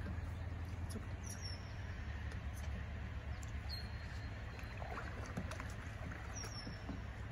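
A bird repeats a short high chirp about every two and a half seconds over a steady low rumble, with a few faint clicks.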